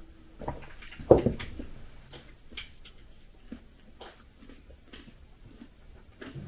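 Sipping tea from a mug, then the mug set down on the table within the first second or so, followed by faint small clicks and rustles.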